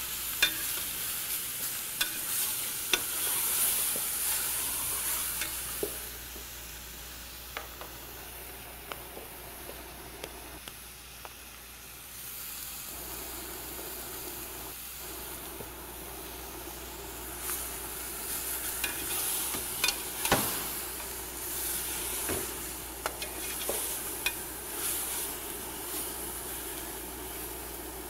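Cooking on a stove: a steady sizzling hiss with scattered clicks and knocks of a utensil stirring in a pot. A steady low hum sets in about halfway through.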